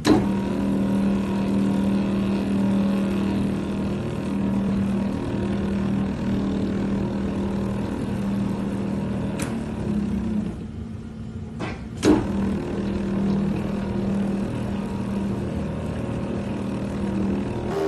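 Metal lathe running steadily with a steady hum while its knurling tool is pressed into the turning metal workpiece, rolling a diamond knurl. A few sharp clicks, the loudest right after a brief drop in level about two-thirds of the way through.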